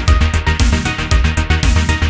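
Electronic background music with a steady, fast beat and heavy bass.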